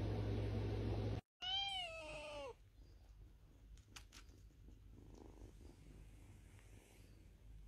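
A steady hiss and hum that cuts off after about a second, then one high kitten meow lasting about a second that rises a little and falls away. After the meow, faint purring from kittens curled up asleep against their mother cat.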